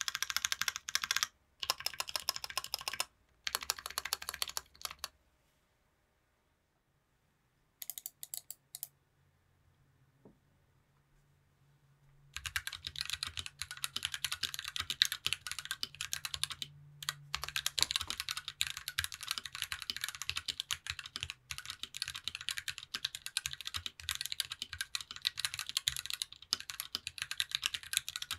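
Typing on a TOFU60 aluminium mechanical keyboard with a brass plate and GMK Delta keycaps. First come bursts of keystrokes on stock Kiwi switches for about five seconds, then a pause broken by one short burst. From about twelve seconds in there is steady continuous typing on Kiwi switches fitted with UHMWPE linear stems.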